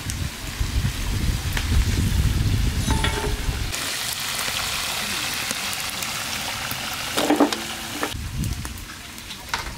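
Spice-marinated fish pieces sizzling as they deep-fry in oil in a large karahi, with a metal skimmer knocking and scraping in the pan as fried pieces are lifted out. The sizzle comes up clearly about four seconds in.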